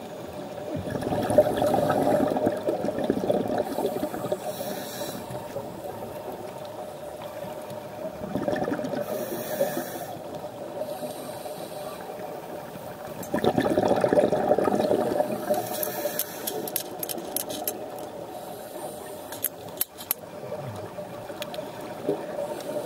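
Muffled underwater water noise on a camera housing, swelling three times several seconds apart, with a scatter of sharp clicks in the second half.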